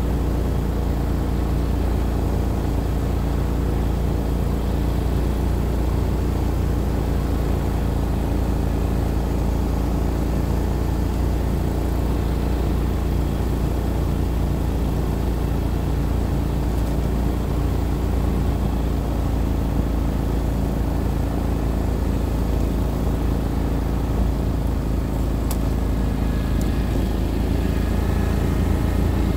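ATV engine running at a steady pitch while driving through fresh snow to break a trail.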